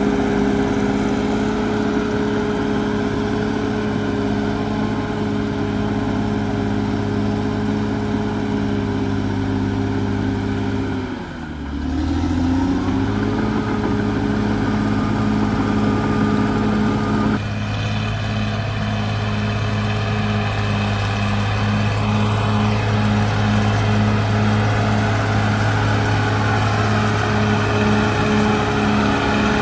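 Caterpillar D6R XL bulldozer's diesel engine running steadily at working speed. About eleven seconds in, its pitch and level dip sharply for about a second and climb back. Past halfway the tone changes abruptly, with a low, evenly pulsing beat.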